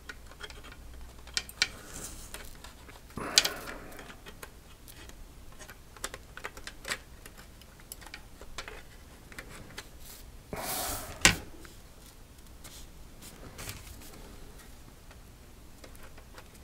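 Plastic model kit fuselage halves handled and pressed together: scattered small clicks and taps of plastic, with two brief louder rustles, about three seconds in and around eleven seconds, the second ending in a sharp click.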